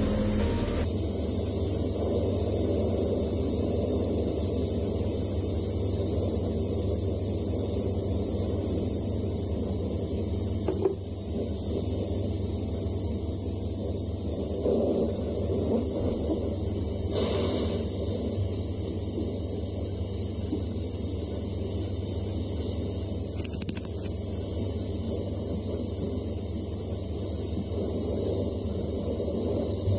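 Gas torch flame hissing steadily as it heats metal in a casting crucible, with a steady low hum underneath.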